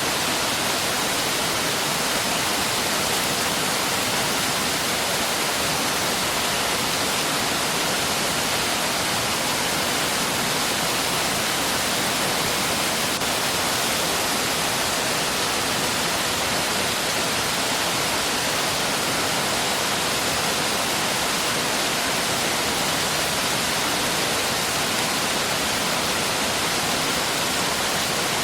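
Mountain stream rushing steadily over rocks, an even, unbroken sound of water with no change in level.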